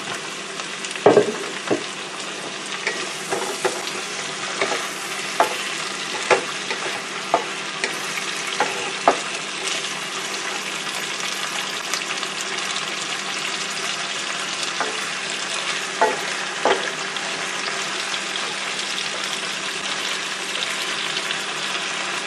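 Mushrooms, onions and fish sizzling in oil in a wok, stirred with a wooden spatula that knocks sharply against the pan a dozen or so times in the first half and twice more later.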